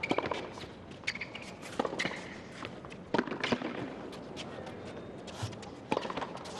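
Tennis ball and shoes on a hard court: scattered sharp taps, about a dozen, over a low stadium background.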